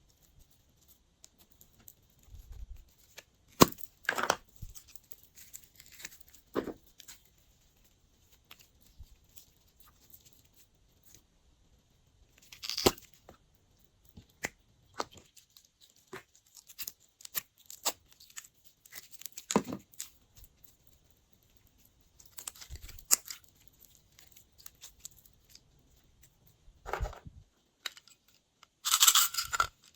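Glossy slime being worked and mixed by hand: irregular sticky crackles and pops with quiet gaps between them, and a louder, denser run of crackling near the end.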